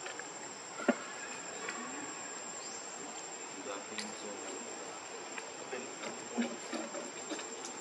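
Insects trilling steadily at a high pitch over outdoor ambience, with scattered small clicks and a sharp click about a second in.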